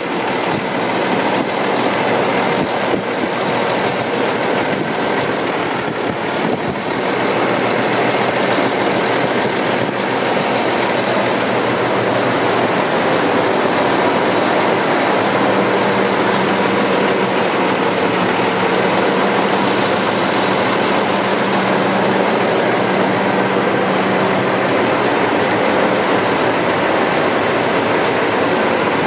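Diesel engine of a 2008 Volvo VNM42T day cab tractor idling steadily, with a low hum that gets a little stronger about twelve seconds in.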